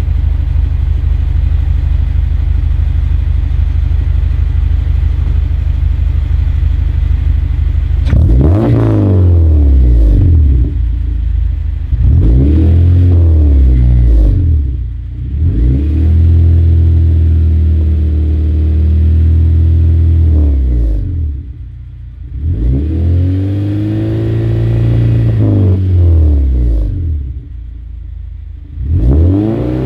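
2011 Honda Civic Si's four-cylinder engine, breathing through an aftermarket header and exhaust, runs steadily for about eight seconds. It is then revved up and back down about five times in quick succession.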